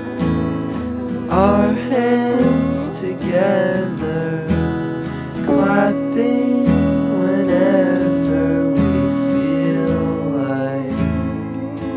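Music: strummed acoustic guitar with a sliding melody line played over it.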